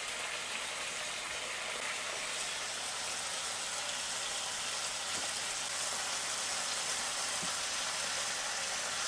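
Two rashers of bacon sizzling in oil in a frying pan: a steady hiss with a few faint crackles.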